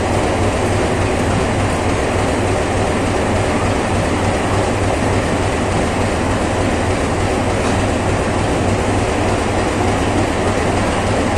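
Indian Railways passenger coaches rolling past a station platform as the train pulls out: a steady rumble of wheels on the rails with a low hum underneath.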